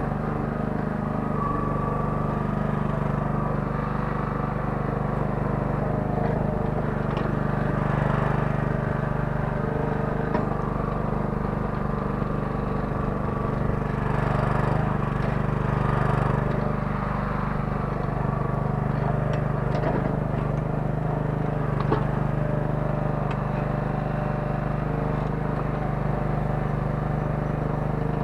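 Kellfri mini excavator's small 9 hp engine running steadily at a constant speed, with a few brief knocks, the sharpest about two-thirds of the way through.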